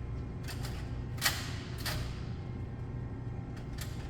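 Aluminium soda cans clacking and knocking as they are set into the racks of an open drinks vending machine, about five separate knocks with the loudest about a second in, over a steady low hum.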